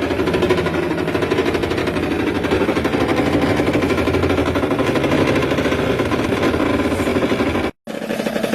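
Water purifier's pump running with a loud, fast-pulsing mechanical buzz and rattle, the abnormal noise that marks a faulty unit. The sound breaks off for an instant near the end, then resumes.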